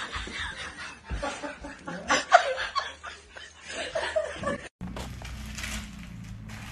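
Laughter in repeated bursts, mixed with a little speech. It cuts off suddenly about two-thirds through, giving way to a quieter low hum and the faint crinkle of aluminium foil being handled.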